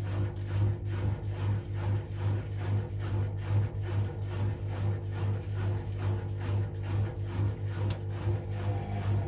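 Hotpoint Aquarius WMA37 washing machine spinning at a low speed: the motor and drum give a steady hum that pulses about three times a second, with some rubbing. The suspect drum bearings do not sound too bad to the owner.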